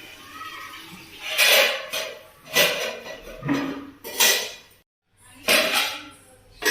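Metal kitchenware clattering: about half a dozen separate knocks and scrapes of a utensil against pots and dishes, each with a short ring.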